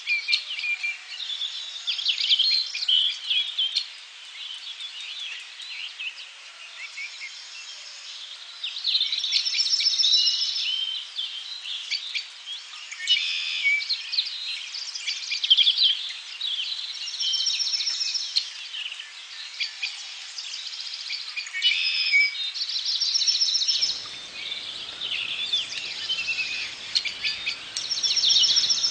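Wild birds calling and chirping, with bursts of high, rapid trills every few seconds. A low rushing noise comes in near the end.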